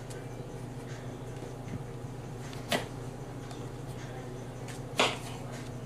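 Kitchen knife knocking sharply against a hard surface while cutting boiled potatoes: two clicks a bit over two seconds apart, the second louder, over a steady low hum.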